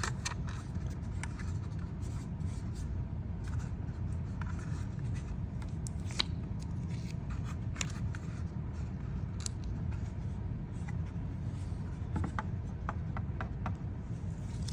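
Light, irregular clicks and scrapes of a 3D-printed plastic reader box being handled, over a steady low background hum.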